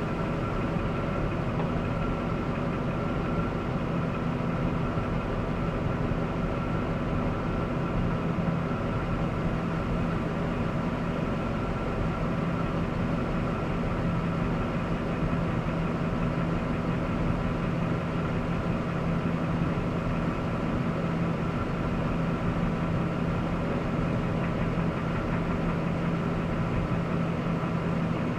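Jasper remanufactured 5.3-litre V8 engine running steadily at an even speed, with a noise the owner cannot identify.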